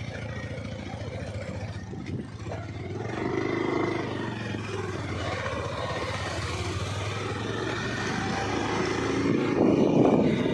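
A motorcycle engine running as the bike passes close by and pulls away, its steady hum fading about eight seconds in. Near the end a louder rough scraping noise takes over.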